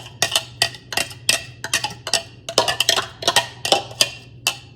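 Knife chopping onion and garlic on a cutting board: quick, irregular knocks, several a second.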